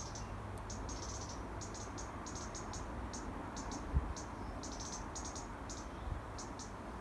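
Handsaw cutting through a dead eucalyptus limb, heard at a distance as short, uneven rasping strokes over a low background rumble, with a soft thump about four seconds in.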